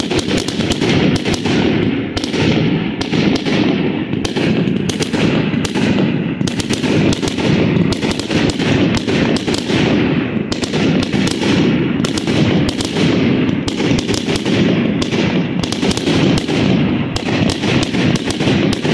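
Aerial firework shells bursting and crackling in a loud, rapid barrage, several bangs a second with no break.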